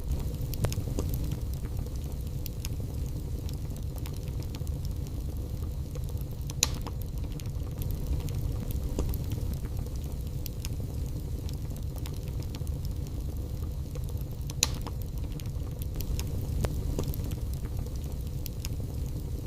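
Logs burning in a fireplace: a steady low rumble of flames with frequent small crackles and three sharper, louder pops spread through.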